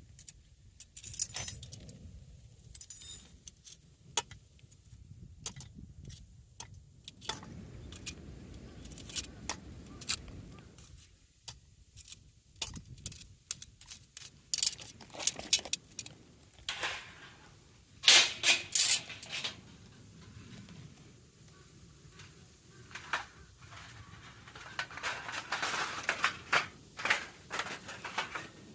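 Small metal objects clinking and rattling as they are handled, in irregular bursts of sharp clinks. The loudest rattle comes a little past the middle.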